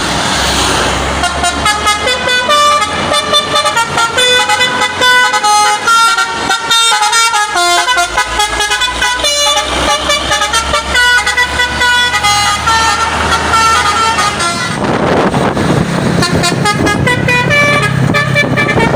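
Truck's basuri telolet horn, a set of multi-tone horns, playing a quick melody of short notes that jump from pitch to pitch. For the last few seconds a louder rush of noise comes in under the notes.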